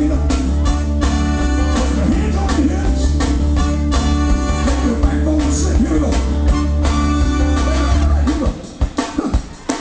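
Live soul band playing, with guitar, a steady bass line and singing. About eight seconds in the bass drops out and only short, separate hits remain.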